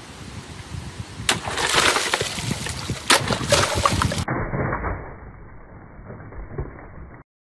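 A steel straight sword cutting through shrink-wrapped packs of plastic water bottles: sharp strikes about a second in and twice more near the three-second mark, with bottles bursting and water splashing. Halfway through the sound turns duller, and it cuts off suddenly near the end.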